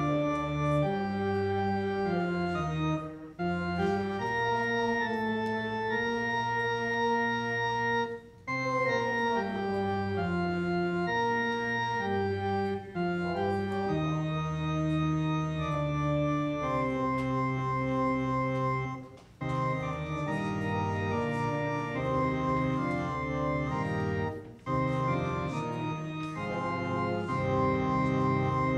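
Church organ playing a hymn in sustained chords, with short breaks between the phrases.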